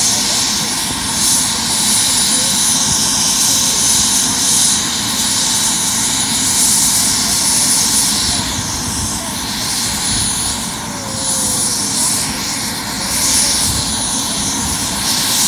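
Helicopter running on the ground, its engine and rotor making a steady, loud noise with a faint high whine, while it sits waiting before lift-off.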